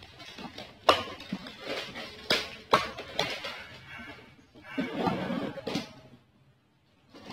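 Box cutter slicing through packing tape on a cardboard box: a run of sharp scraping strokes and tape rips, with a longer rustle of tape and cardboard about five seconds in, then quiet.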